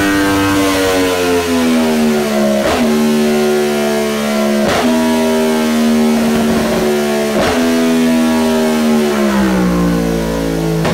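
Sport motorcycle engine with an Akrapovič silencer running on a rolling-road dyno, its rear wheel turning the roller. The engine note falls, holds, and steps with brief breaks about three times before dropping again near the end.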